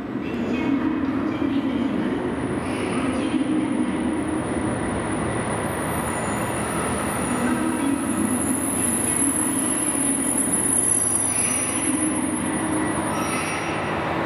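A passenger train moving along the station track, running steadily, with a thin high wheel squeal held over the rumble.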